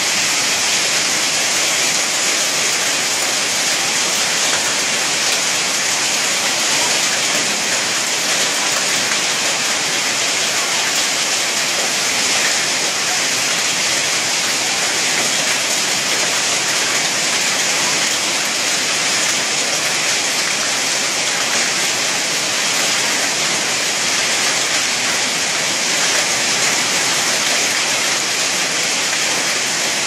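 Heavy storm downpour of rain and hail pelting down, a loud, steady, unbroken hiss.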